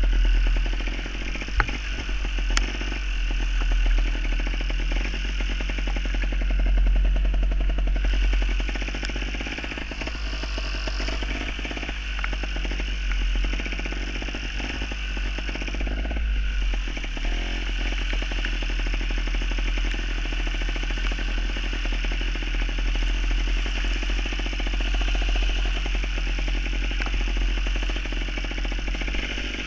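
Gas Gas trials motorcycle's two-stroke engine running as it is ridden, its buzzing note swelling and easing with the throttle.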